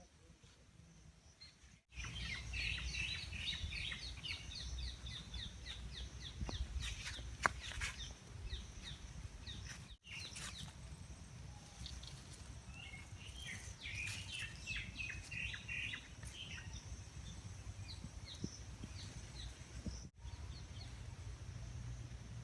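Outdoor garden ambience: birds chirping in quick runs of short calls, over a steady high-pitched whine and a low rumble. The sound breaks off sharply three times, about two, ten and twenty seconds in.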